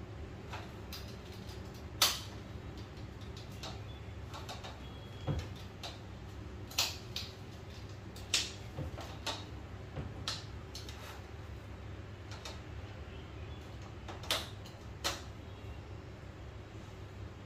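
Irregular sharp clicks and knocks, about eight in all, as the fabric of a portable frame projector screen is stretched and fastened onto its frame, over a steady low hum of room noise.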